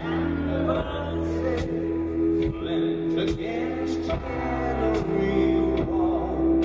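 Rock band playing live, heard through the crowd's recording: long held low bass and keyboard notes under a slow drum beat, about one hit every 0.8 s, with a male voice singing.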